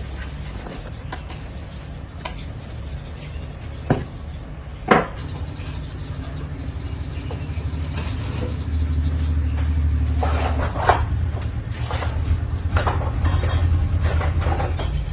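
Clinks and knocks of hard objects being handled over a steady low mechanical hum. The hum grows louder about halfway through, and the knocking becomes more frequent near the end.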